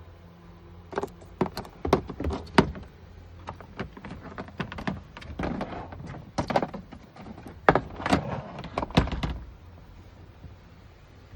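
A string of knocks, clicks and short scrapes from hands working on a car door's panel and fittings, stopping about two seconds before the end.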